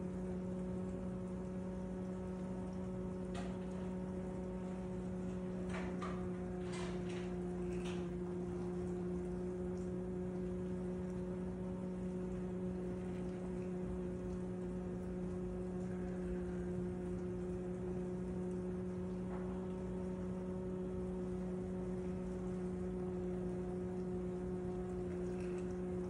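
KitchenAid KDFM404KPS dishwasher running: a steady hum with a few light ticks, a cluster about a quarter of the way through and one more past the middle. The owner finds the noise excessive.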